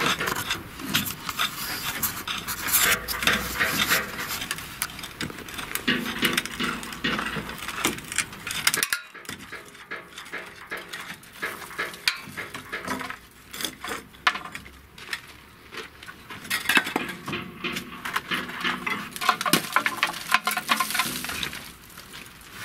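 Hammer driving nails into wooden formwork boards on a concrete-block wall: an irregular run of sharp knocks and metallic clinks, broken by a short pause about nine seconds in.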